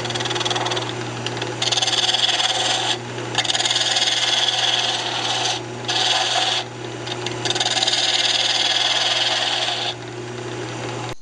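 Wood lathe running with a steady hum while a turning tool cuts into the spinning walnut spindle in four scraping stretches with short pauses between, sizing the candlestick's narrow centre against calipers. The sound cuts off abruptly at the very end.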